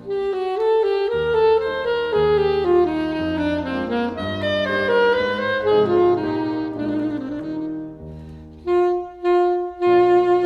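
Classical saxophone playing a melody over piano accompaniment. Near the end the piano drops out for a moment under a few separate saxophone notes, then comes back.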